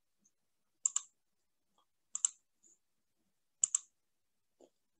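Computer mouse button clicked three times, each click a quick press-and-release pair, about a second and a half apart, advancing a slideshow's text animations.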